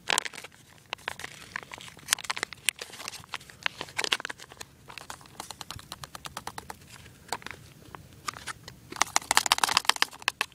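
Foil tuna pouch crinkling as it is squeezed and shaken out into a metal canteen cup: a string of sharp crinkles and crackles, thickest about nine seconds in.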